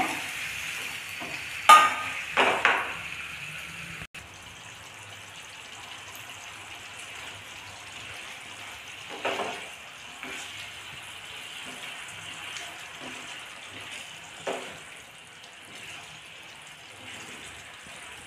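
Water poured into a hot pan of egg ghee roast masala, with a couple of sharp splashes about two seconds in, then the thinned gravy simmering and sizzling steadily as it is stirred, with a few brief scrapes of the spatula on the pan.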